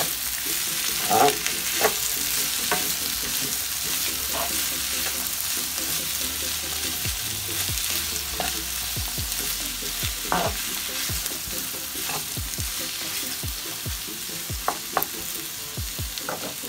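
Chopped onion, bell pepper, tomato, spring onion and garlic sizzling steadily in a non-stick frying pan of beef drippings, stirred with a wooden spoon that scrapes and knocks against the pan now and then.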